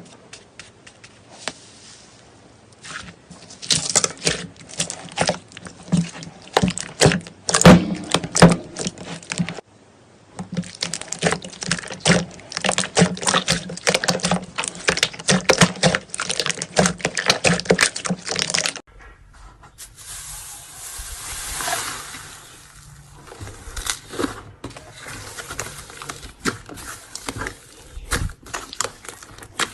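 Slime being squeezed and pressed by hand: a dense run of wet clicks and pops. About two-thirds of the way through it cuts abruptly to a softer, hissier stretch of squishing with scattered pops.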